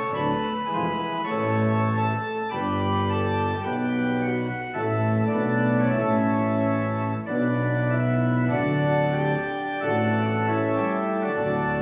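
Two-manual church organ playing sustained full chords over a pedal bass line, the chords changing every second or two.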